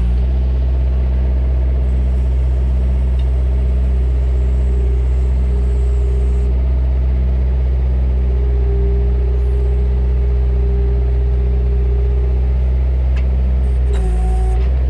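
Bobcat 331E compact excavator's diesel engine running steadily, with a brief change in pitch near the end.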